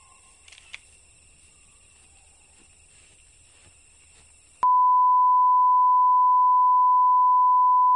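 Faint tape hiss with a thin high whine and a small click. A little past halfway a loud, steady electronic tone at one mid pitch cuts in suddenly and holds, like a test-tone beep.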